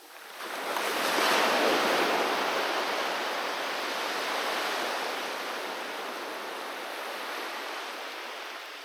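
Ocean surf: a wave breaks on the shore about half a second in, then its wash slowly fades away.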